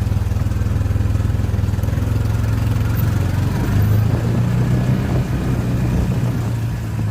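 Engine running steadily, its pitch rising a little about four seconds in and then settling back.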